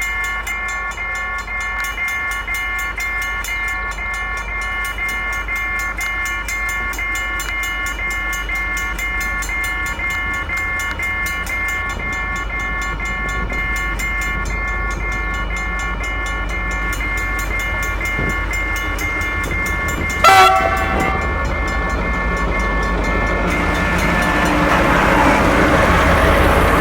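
A freight train hauled by a CRRC CDD3A1 diesel-electric locomotive approaching, with a low engine rumble under a steady, regularly pulsing multi-tone warning signal. About 20 seconds in there is a short, loud horn blast. Near the end the rumble and wheel noise swell as the train draws close.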